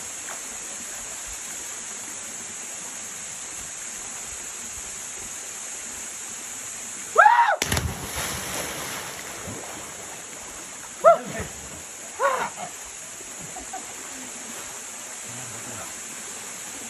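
A person plunges into a waterfall's pool with a loud splash about seven seconds in, just after a shout. Two more short shouts follow a few seconds later. The steady rush of a small waterfall runs underneath.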